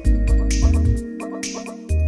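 Background music with a steady beat: deep bass and drum hits under short, repeated pitched notes, the bass dropping out about halfway through.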